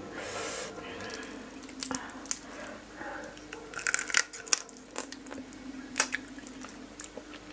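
Raw fish-sauce-pickled blue crab shell cracking and crunching as a crab section is pulled apart by hand and the legs are bitten. It comes as an irregular scatter of sharp cracks, the loudest about four and six seconds in.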